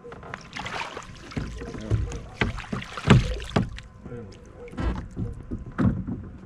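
Knocks and thumps of handling in a kayak: gear and hands bumping the hull at irregular times, the loudest thump about three seconds in.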